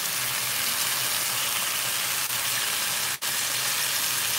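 Chunks of beef chuck roast and short ribs sizzling steadily as they sear in a hot skillet, browned on the outside rather than cooked through. The sizzle cuts out for a split second about three seconds in.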